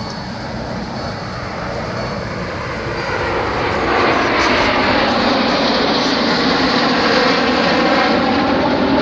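Formation of nine Snowbirds CT-114 Tutor jets flying past, each with a single turbojet. Their roar swells about four seconds in and stays loud as they come by low.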